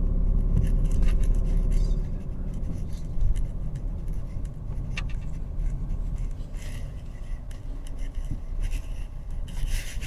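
Car cabin noise while driving slowly: a steady low engine and road rumble that eases off about two seconds in. A sharp click about five seconds in and a few light rustles follow.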